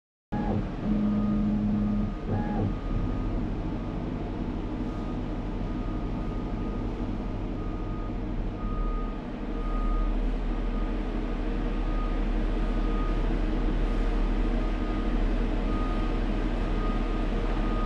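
FORTIS CNC router homing its axes: the drive motors run steadily with a low mechanical hum and a whine that changes pitch as the axes move. The sound shifts about 1 to 3 seconds in and grows louder about 9 seconds in.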